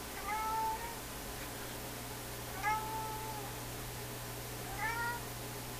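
Three short mewing animal cries, each rising then holding level, spaced about two seconds apart, over a steady low hum.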